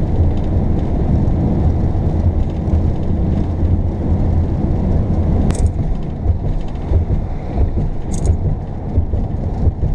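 An RV being driven at highway speed, heard from inside the cab: a steady, loud low rumble from the engine and tyres, uneven with wind buffeting. Three short high squeaks come about two and a half seconds apart in the second half.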